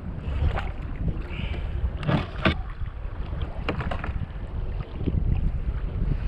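Wind buffeting the microphone over sea chop around a fishing kayak, a steady low rumble, with a few short sharp knocks about two seconds in and again near four seconds.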